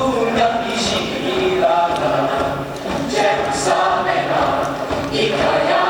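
A choir singing, many voices together on held notes.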